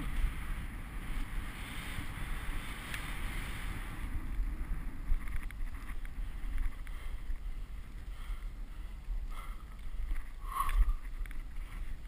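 Skis running through powder snow on a fast descent, a steady rushing hiss with wind buffeting the helmet-mounted microphone. A brief louder, higher-pitched sound cuts in about ten and a half seconds in.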